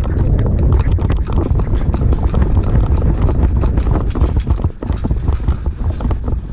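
Quick irregular footsteps and knocking from a person moving fast with a body-worn camera, over a loud low rumble of wind buffeting the microphone.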